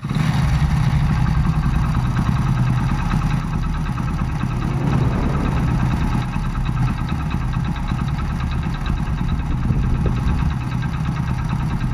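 Hero Splendor motorcycle's single-cylinder four-stroke engine running steadily with a rattling noise that sounds like a worn timing chain. The owner says this noise usually stops once the adjuster bolts on the engine are set, without replacing the chain.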